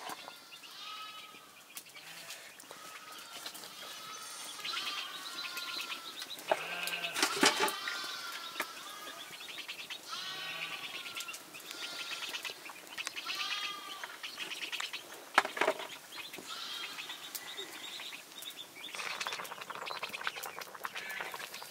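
A flock of sheep bleating again and again, one call every second or two, with a few sharp knocks among them.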